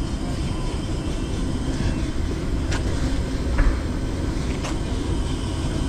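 Deutsche Bahn intercity train pulling out of the platform and rolling past, a steady low rumble with a few faint clicks.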